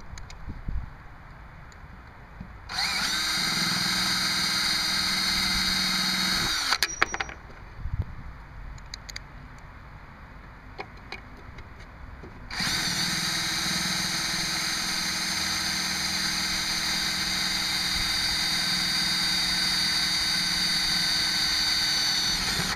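DeWalt cordless drill driving a self-tapping screw into the metal of a lawn mower engine's crankshaft oil seal, to pull the seal out. It runs steadily twice: a short run of about four seconds, a pause with a few clicks, then a longer run of about ten seconds.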